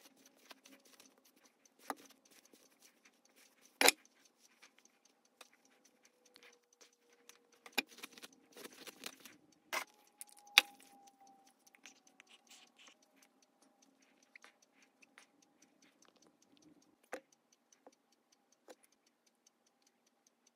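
Faint clicks, taps and light rattles from handling hair ties, a bottle and lipstick, sped up, with a few sharper knocks about 4 and 10 seconds in.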